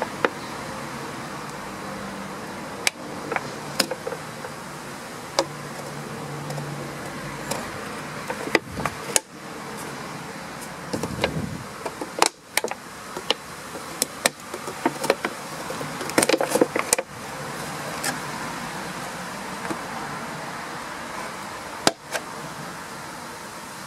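Scissors snipping through a thin plastic 2-litre bottle: scattered sharp snips and crackles of the plastic, with a quick run of snips about sixteen seconds in, over a steady background hum.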